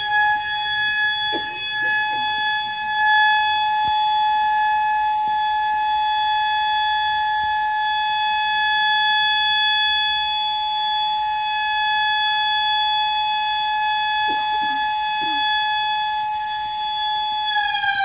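Air raid siren sounding one steady, high held note, which begins to drop in pitch near the end.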